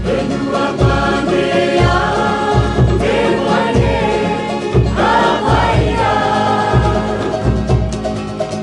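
Group of voices singing a Cook Islands song in harmony, backed by strummed ukuleles and a regular drum beat.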